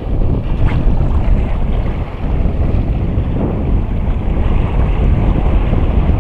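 Wind buffeting an action camera's microphone in a steady low rumble, with the sea washing over the rocks.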